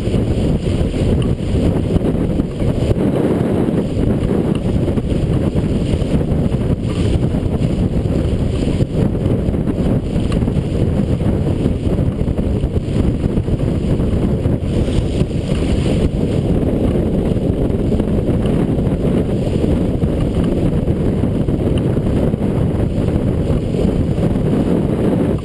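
Strong wind blasting the microphone as a steady low rumble, over water rushing past the hull of a sailboat heeled hard under sail.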